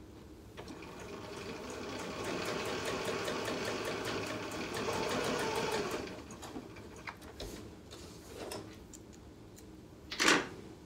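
Computerized sewing machine stitching a seam through pieced cotton fabric: it runs at a fast, even stitching rhythm for about five seconds, then stops. Light clicks of the fabric being handled follow, and a short, loud sound near the end.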